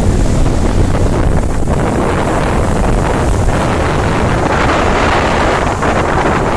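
Wind buffeting the microphone aboard a moving motorboat, over the steady noise of the engine and water rushing past the hull.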